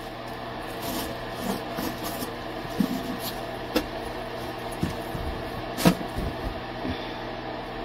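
A fabric shawl being shaken out and straightened close to the microphone: soft rubbing and rustling with a few short knocks, over a steady low hum.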